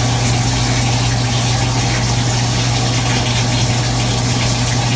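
Shower water running steadily, with a constant low hum underneath.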